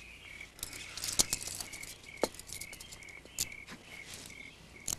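Crickets chirping steadily in short repeated pulses. A few short rustles and clicks of clothing being handled sound over them, as a man's arms are tied behind a tree.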